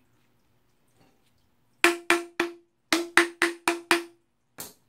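A hammer tapping a PVC pipe into a glued PVC elbow fitting: about ten sharp hollow knocks in three quick runs, each leaving a brief ringing note from the pipe.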